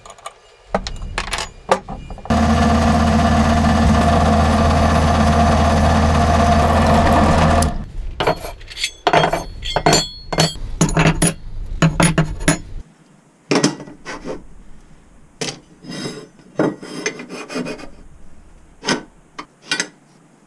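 A power tool runs steadily for about five seconds and cuts off abruptly. It is followed by scraping and a string of sharp clinks and knocks as steel parts are handled and set down on a workbench.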